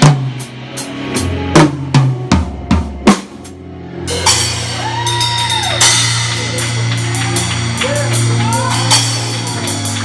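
Drum kit played live: a fill of loud separate drum hits over the first three seconds or so, then steady cymbal playing over a held low note from the band.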